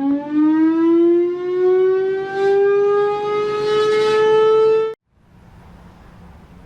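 Whelen WPS-2904 electronic outdoor warning siren sounding its wail tone, the pitch climbing and gradually levelling off. It cuts off abruptly about five seconds in, leaving a faint low hum.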